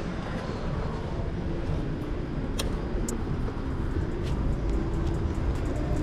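BMW superbike's inline-four engine with Akrapovič exhaust running steadily at low revs, with no revving, and two sharp ticks a little past the middle.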